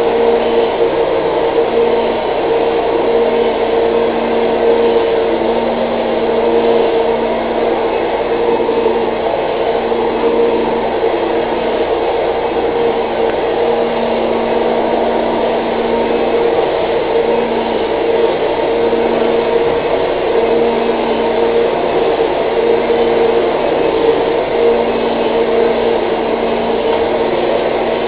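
Vacuum cleaner running steadily: a loud, even whir with a steady hum whose lower tone drops in and out.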